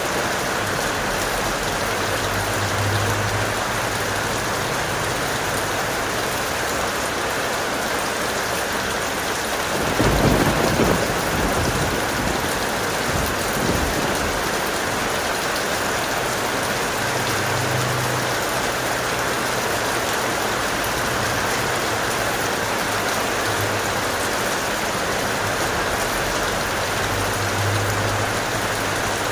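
Heavy rain falling steadily, with a loud clap of thunder about ten seconds in and a weaker rumble a few seconds later.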